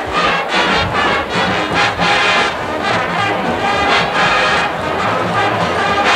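Marching band brass section playing a swing-era big band medley: loud, punchy brass chords with trombones and trumpets in a rhythmic pattern.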